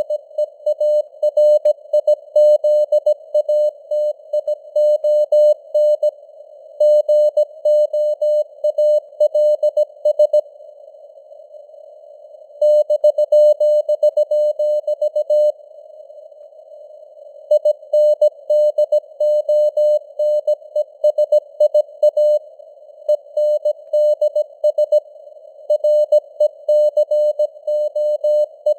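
Morse code sent at 17 words per minute: a single beep of about 600 Hz keyed on and off in dots and dashes over a band of hiss from simulated radio noise. The keying breaks off twice for about two seconds.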